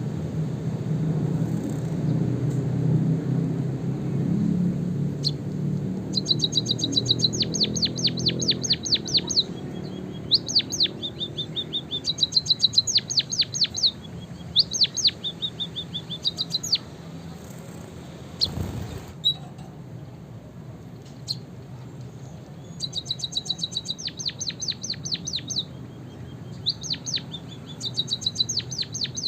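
White-headed munia singing canary-style song: bursts of fast, sharp down-slurred chirps alternating with short steady whistled notes, starting about six seconds in and returning several times. A low rumble fades out in the first third, and a single thump comes about two-thirds of the way through.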